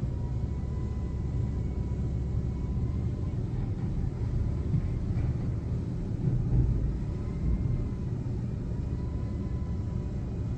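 Front-loader garbage truck engine running steadily, a low rumble with a faint high whine over it.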